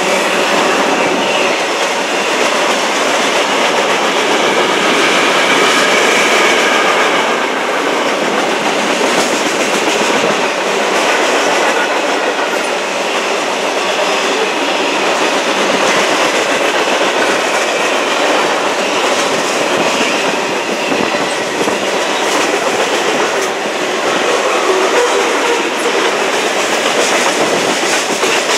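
Freight cars of a passing CSX manifest train, mostly tank cars and boxcars, rolling by: a loud, steady noise of steel wheels on rail, with a faint high wheel squeal in the first several seconds.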